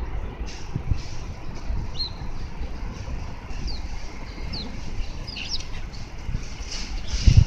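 Small birds giving a few short, high chirps now and then over a steady low outdoor rumble, with a loud low thump near the end.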